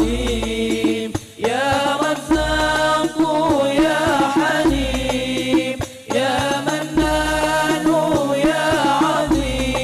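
Al Banjari sholawat group singing an Arabic devotional chant together in long, bending melodic phrases over a beat of hand-struck frame drums with deep bass booms, amplified through microphones and a sound system.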